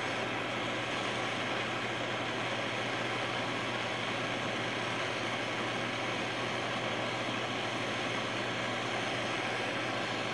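Blowtorch flame hissing steadily as it heats the hot end of a Manson hot-air engine.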